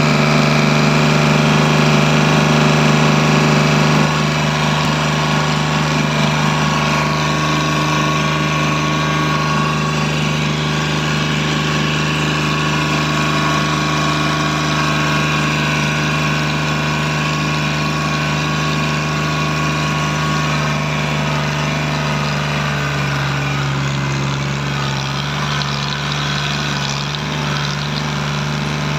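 Tractor diesel engine running steadily as the tractor drives along, pulling a trolley, heard from the driver's seat close to the upright exhaust stack. The engine note shifts slightly about two-thirds of the way through.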